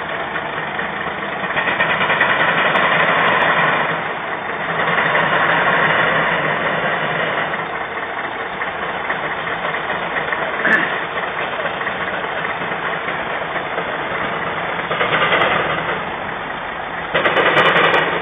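Case steam traction engine running, with a steady noise and several hissing bursts of steam, each lasting two or three seconds. The last and loudest burst comes near the end.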